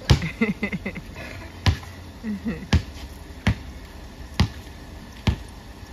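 Basketball dribbled on a concrete driveway: six sharp bounces, about one a second.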